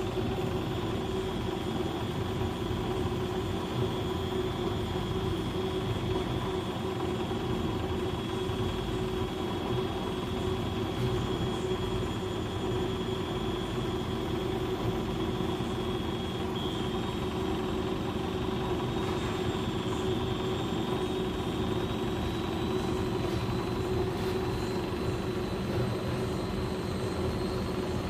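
Beko WS832425S washing machine on its final spin, the drum spinning up with a steady hum and a high motor whine that steps up in pitch about halfway through and keeps climbing.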